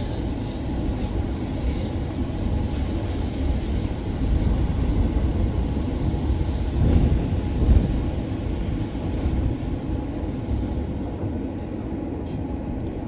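Steady low rumble of a moving bus heard from inside the passenger cabin, engine and road noise together, growing a little louder for a moment about seven seconds in.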